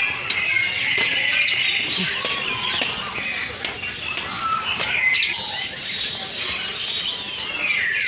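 Many birds chirping and calling at once: a dense, high chatter of short calls and quick whistled glides, with no pause.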